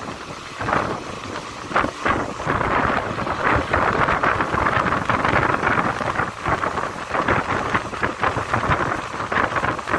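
Wind buffeting the microphone held out of a moving passenger train, over the steady running noise of the coaches on the rails. The sound is a loud, rough rush that swells and dips unevenly, with no distinct tones or knocks.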